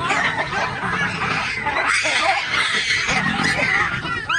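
A troop of baboons calling in alarm at a nearby leopard, many loud overlapping calls at once, with a run of quick rising-and-falling shrieks near the end.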